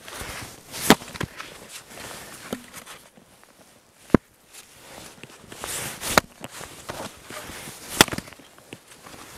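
Axe splitting firewood logs on a wooden chopping block: a few sharp, cracking strikes, the loudest near the end as a log is cleft in two. Boots crunch in the snow between the blows.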